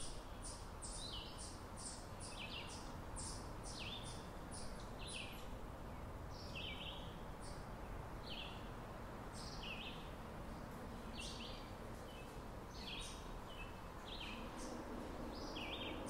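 Backyard soundscape of several small birds chirping, short calls repeating every second or so, over a steady low background hiss.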